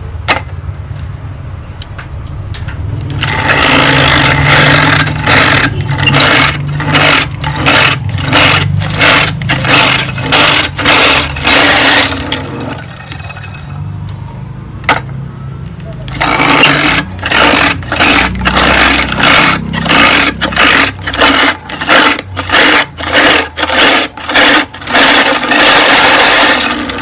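Electric double-blade ice crusher running and crushing ice, a motor hum under rapid crunching and cracking of ice. The crushing breaks off for a few seconds in the middle and then resumes, typical of this double-blade crusher, which works in stops and starts rather than crushing continuously.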